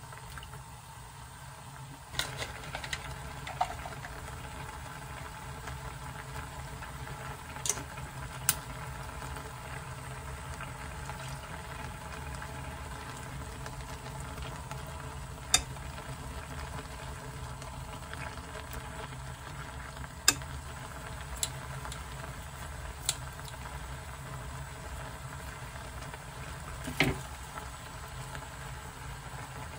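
Kimchi and pork neck simmering in red broth in a frying pan, a steady bubbling. Several sharp clinks of metal tongs against the pan are scattered through it.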